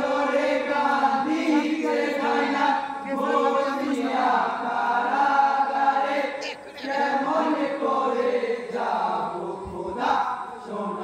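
A chorus of men singing a marsiya, a mourning elegy, together in long held phrases with short breaks between them.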